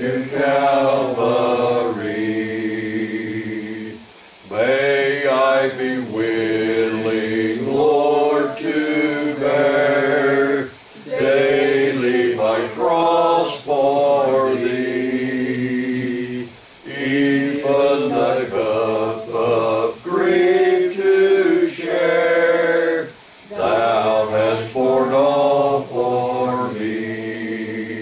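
A congregation singing a hymn a cappella, voices only with no instruments, in sustained phrases with brief pauses between lines.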